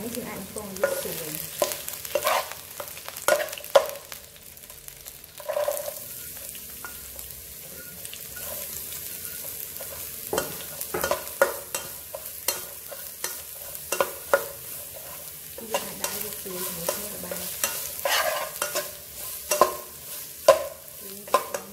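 Metal wok spatula knocking and scraping against a non-stick wok as lemongrass, garlic and chicken are stir-fried, over a steady sizzle of frying. The sharp knocks come in irregular clusters.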